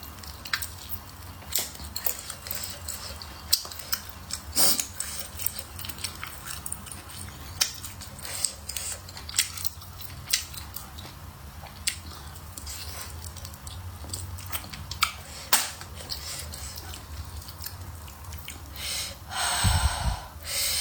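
A person chewing and biting food with many small wet clicks, and a louder noisy burst about a second long near the end.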